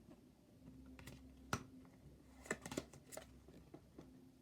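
Faint scattered clicks and taps of tarot cards being handled and laid down, with a sharper snap about a second and a half in and a quick cluster a second later.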